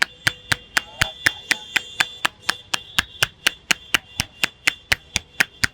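A barber's hands striking in fast, even percussive massage strokes, about four sharp slaps a second.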